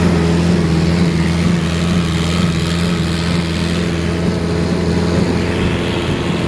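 Concrete pump's engine running steadily at a constant speed, a continuous low hum, while pumping mix during the pour.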